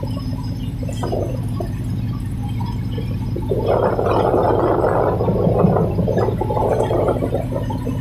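Tugboat's diesel engines running with a steady low drone. About three and a half seconds in, a louder rough rushing noise joins it.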